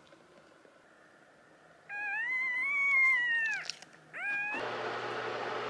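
Newborn puppy crying: one long, high-pitched cry that rises and then falls away, about two seconds in, followed by a short rising squeak. Near the end a steady rushing noise with a low hum starts abruptly.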